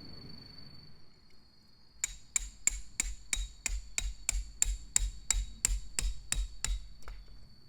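A tent peg being driven into the ground with a hammer: a run of about sixteen evenly paced strikes, roughly three a second, each a thud with a ringing metallic top, starting about two seconds in and stopping about a second before the end.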